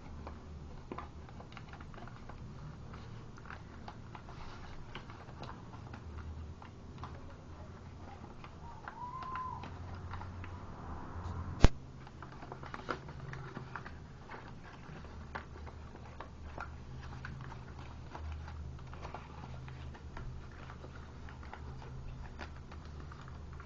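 Origami paper being handled, folded and creased by hand: soft rustling with many small ticks and crinkles, and one sharp click about twelve seconds in.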